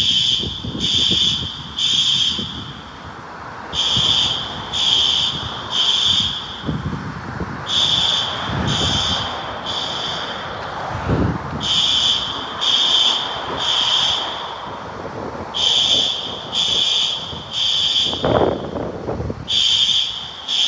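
System Sensor SpectrAlert Advance fire alarm horns sounding the temporal-three evacuation signal: groups of three short, high-pitched beeps, one group about every four seconds, which calls for evacuating the building.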